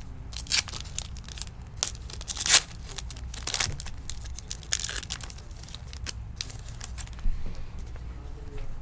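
Foil trading-card pack wrapper crinkling and tearing in several short irregular rustles, as packs and cards are handled.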